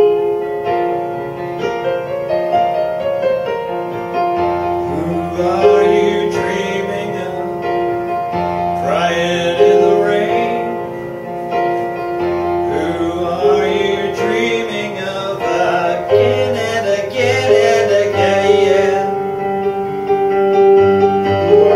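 Yamaha CP4 stage piano playing a slow, sustained melodic passage, with a man's voice singing along in places.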